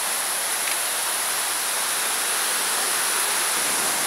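Small waterfall spilling down a rock face into a pool, a steady even rush of falling water, with a thin steady high-pitched whine running along with it.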